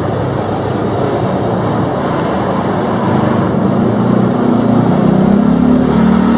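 Steady engine and traffic-like rumble, with a low engine drone growing louder from about halfway through.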